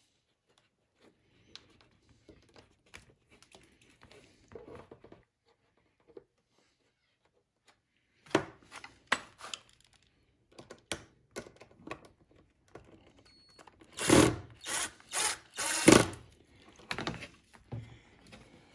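Plastic hubcaps and small screws being handled: faint clicks and rustling at first, then sharper clicks, and loud knocks and clatter of plastic about two-thirds of the way in.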